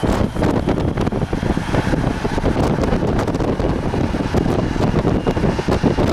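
Strong wind buffeting the camera microphone, a constant low rumbling flutter.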